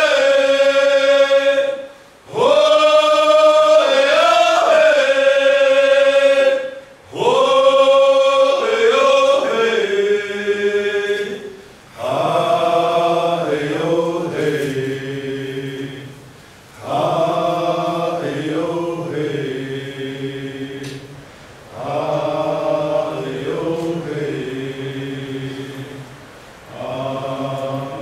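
Sung chant in phrases of a few seconds with short breaks between them: a high voice holding and bending long notes first, then deeper voices singing shorter repeated phrases from a little before halfway through.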